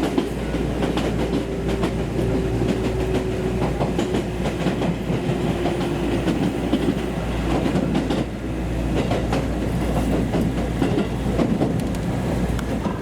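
Train running along the track, its wheels clacking over the rail joints over a steady low rumble, with a faint tone that slowly falls in pitch during the first half.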